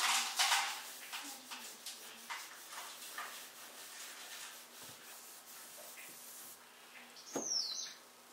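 Kitchen cleaning noises: a short hissing burst at the start, then scattered light rubs and small knocks, and a brief high squeak that falls in pitch near the end.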